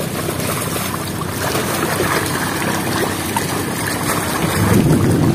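Fish crowded in a net cage thrashing at the surface, a steady churning splash of water.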